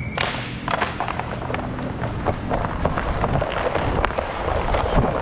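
Roller hockey play: inline skate wheels and strides clattering on plastic sport-court tiles, with hockey sticks and puck clacking, heard as a string of sharp clicks and knocks over a steady low rumble.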